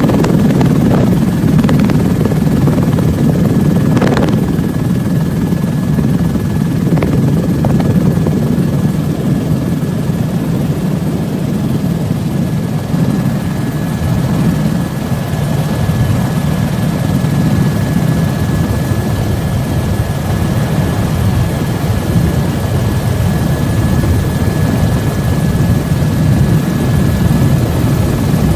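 Helicopter running steadily: a constant engine and rotor noise with a thin, steady high whine above it.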